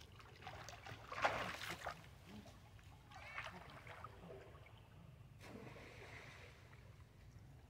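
Water splashing and sloshing as long-tailed macaques swim and move about in a shallow pool. There is a louder burst of splashing about a second in, and smaller splashes around three seconds and five and a half seconds in.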